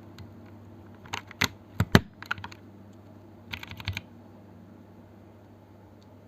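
Typing on a Noir Gear OLV 75 mechanical keyboard fitted with stock, unlubed Holy Panda tactile switches and OSA-profile keycaps. A scatter of keystrokes comes about a second in, the loudest near two seconds, and then a quick flurry of taps near four seconds.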